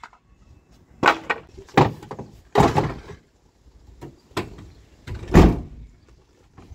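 Knocks and clunks of tools and gear being handled in the back of a work van, with the van's rear door moved. About five separate clunks, the loudest a heavy thud about five and a half seconds in.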